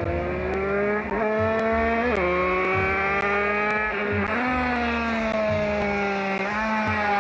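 Competition car's engine accelerating hard. Its pitch climbs and drops sharply with each upshift, about four times.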